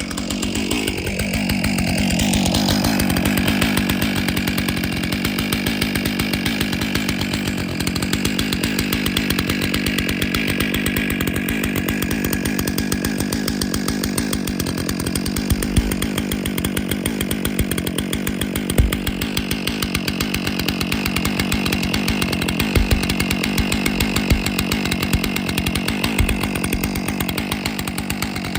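Stihl MS661 C chainsaw's two-stroke engine rising in pitch about a second in, then running steadily at a fast, even speed.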